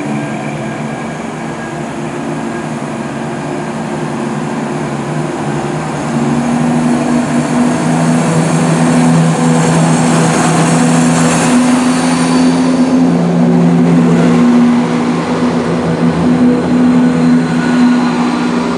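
ScotRail Class 170 Turbostar diesel multiple unit pulling away along the platform, its underfloor diesel engines opening up to a louder, steady drone about six seconds in as the carriages roll past.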